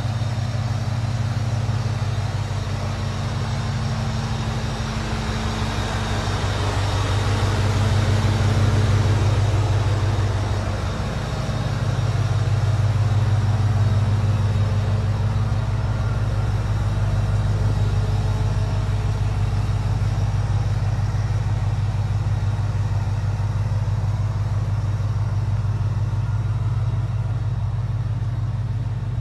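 1979 Ford's swapped-in Ford SVT Lightning V8 idling steadily, its pitch dipping once about ten seconds in.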